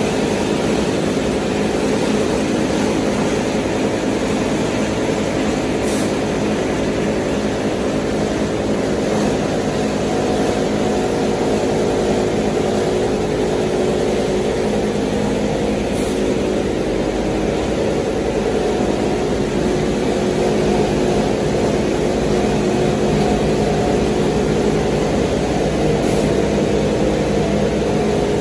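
QD-600SA copper wire granulator running steadily: its motors, conveyor and crushing and separating sections give an unchanging mechanical drone with a hum of several steady tones.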